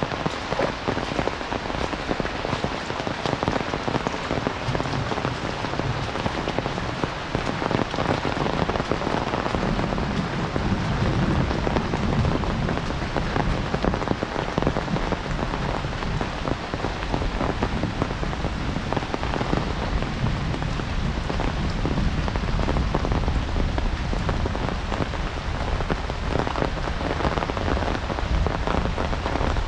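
Heavy monsoon rain falling steadily: a dense, even hiss with many individual drops striking close by.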